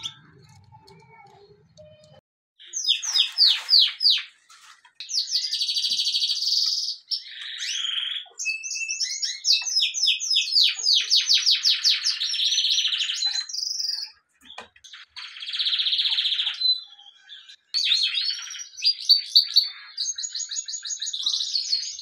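Domestic canary singing: long phrases of fast repeated high notes and rolling trills, broken by a few short pauses, beginning a few seconds in.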